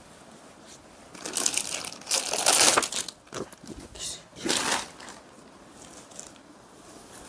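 A lightweight brasso-print saree rustling and crinkling as it is unfolded and lifted out across a sheet, in three or four swishes, the loudest about two to three seconds in.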